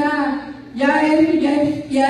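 A woman's voice preaching in Spanish, with words drawn out on long, level pitches in a sing-song delivery.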